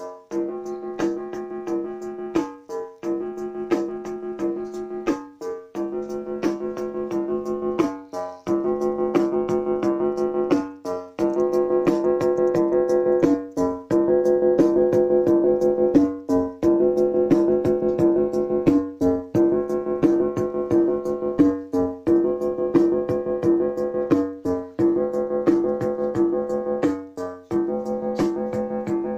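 Casio Casiotone MT-40 keyboard playing a short looping electronic pattern: pitched synth tones over regular drum-machine clicks, the phrase repeating about every three seconds. It grows louder twice, about a third of the way in and again near halfway.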